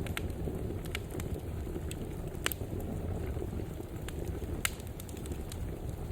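Fireplace wood fire burning with a steady low rumble and scattered crackles and pops, two sharper pops about two and a half and four and a half seconds in.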